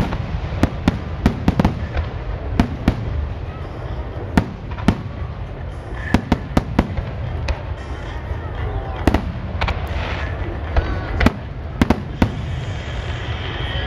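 Aerial firework shells bursting in quick, irregular succession: sharp bangs over a steady low rumble.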